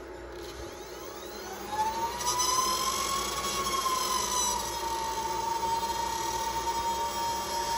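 Supermicro server power-supply fans spinning up once the unit gets mains power, starting about two seconds in: a rush of fan noise with a whine that rises, peaks and settles into a steady high-pitched tone. One of the power-supply fans sounds absolutely terrible, a squeal the owner puts down to a bad fan.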